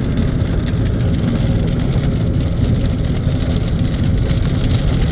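Steady cabin noise of a car cruising at highway speed on a rain-wet road: a low engine and tyre hum with the hiss of rain.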